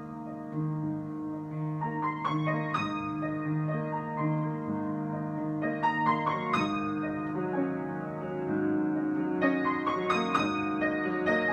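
Piano improvisation: slow, sustained chords over held low notes, with single high notes struck every second or two and a quicker run of notes about ten seconds in.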